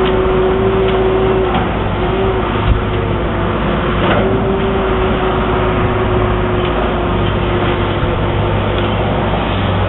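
Heavy diesel excavators working bulk cargo into a ship's hold: engines running steadily with a constant whine over a low hum, and a single knock about three seconds in.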